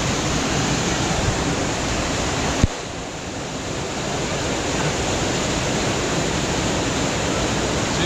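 Steady, loud rush of water from a river or waterfall. A sharp click comes about two and a half seconds in, after which the rush drops a little and builds back over the next second or so.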